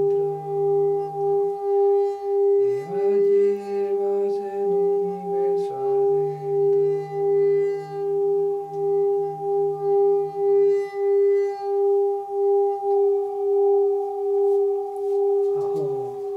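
A hand-held metal singing bowl sung by rubbing its rim with a mallet: one steady ringing tone with a slow, even pulsing and a fainter higher overtone. A lower drone beneath it shifts pitch a few times and fades out about eleven seconds in.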